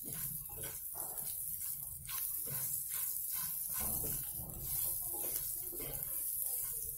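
Onions, dried red chillies and spices sizzling in oil in a kadhai while a wooden spatula stirs and scrapes through them in irregular strokes. The masala is being roasted lightly, only until it turns fragrant.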